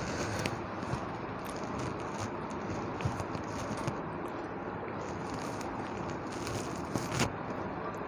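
Close eating sounds of a meal of rice and fish curry: scattered clicks and crackles of chewing and food being handled over a steady hiss, with a run of louder clicks near the end.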